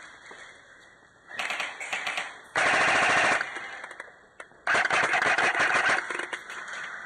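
Airsoft guns firing rapid full-auto bursts: a softer, broken burst about a second in, then two loud bursts of about a second each, near three seconds and about five seconds in.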